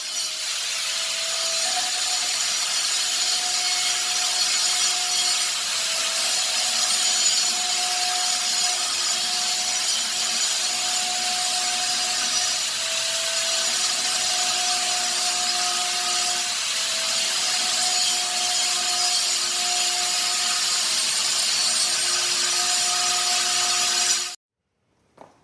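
Power tool cutting with a rasping, grinding noise. Its motor pitch drops and recovers every second or two as it is loaded.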